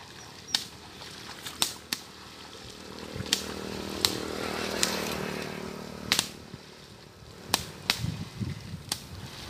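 Long flexible sticks whipped down onto the shallow water of a flooded rice paddy: about ten sharp slapping cracks at irregular intervals. A low hum swells and fades in the middle.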